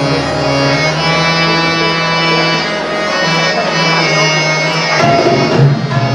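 Live accompaniment to a Christian welcome hymn: long held melody tones over hand drums, the drumming growing busier about five seconds in.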